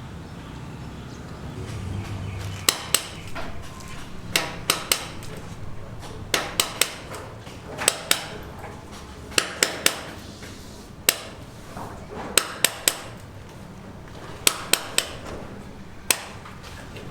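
Hammer blows on a building site, struck in quick groups of two or three with short pauses between the groups.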